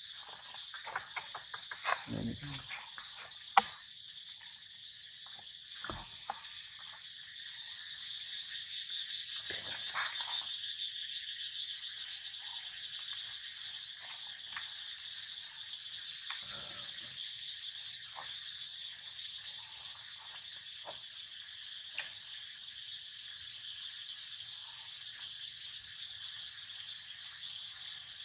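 Insects buzzing in a steady high-pitched drone that swells for several seconds in the middle with a fast pulsing. A few short clicks and faint rustles sound now and then, the sharpest a little over three seconds in.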